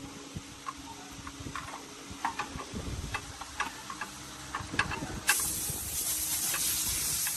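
Scattered light clicks and knocks of workshop handling, then a loud steady hiss that starts suddenly about five seconds in.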